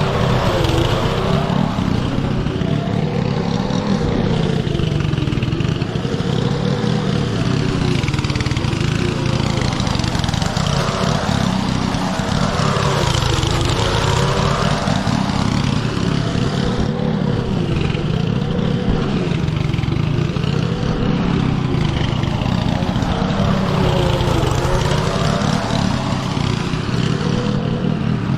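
Petrol lawn mower engine running steadily while cutting thick, wet grass, its pitch sagging and recovering every few seconds as the cut loads the engine.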